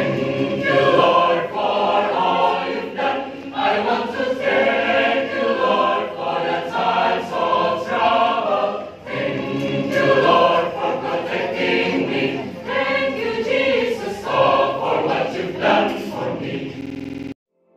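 A large choir singing together, many voices in harmony; the singing cuts off suddenly near the end.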